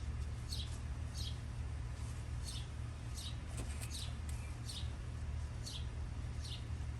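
A bird calling outdoors: short high chirps that sweep downward, repeated a little faster than once a second, over a steady low hum.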